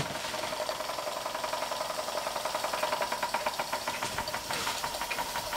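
Large scratch-built oscillating model steam engine running very slowly under steam, puffing in an even, rapid beat, with a faint steady tone underneath.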